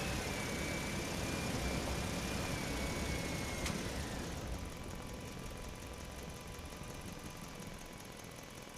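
A vehicle engine running with a low, steady rumble that grows quieter about halfway through, with a faint high whine over it and one sharp click.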